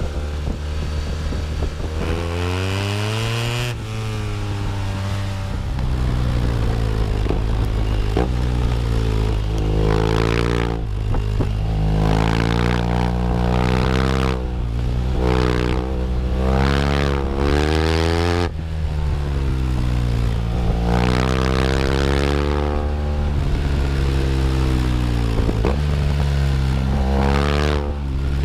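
2015 BMW R1200R boxer-twin engine and exhaust, the engine's pitch repeatedly climbing under throttle and falling back again, with steadier running near the start.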